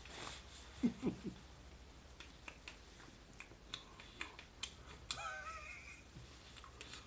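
Close-up mouth noises of a man chewing bread: scattered wet clicks and smacks, with a few low, strong pulses about a second in. A brief wavering, squeaky pitched sound comes a little after five seconds in.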